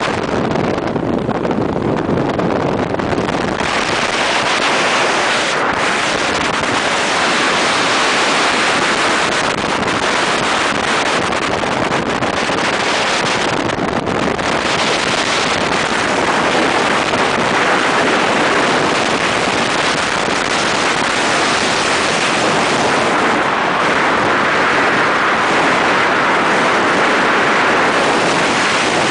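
Steady, loud rush of wind on the microphone and water spray from a motorboat underway.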